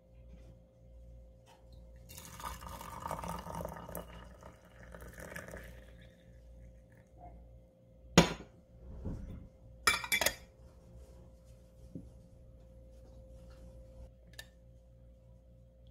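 Hot water pouring into a glass teapot of dried yellow cosmos flowers for about four seconds, followed by two sharp clinks of glassware about two seconds apart and a couple of lighter taps.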